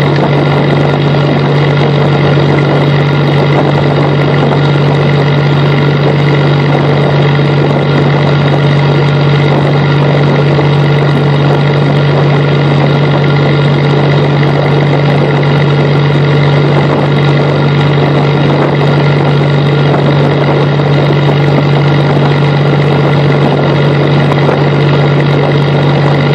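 Fishing boat's engine running steadily under way, a loud, unchanging drone with a strong low hum.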